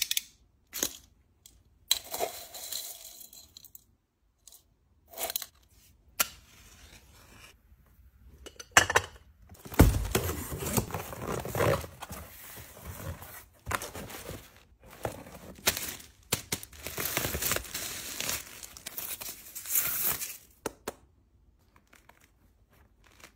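Packaging being handled: a cardboard box opened and paper and plastic wrapping crinkling and tearing in irregular bursts, with short quiet gaps between them.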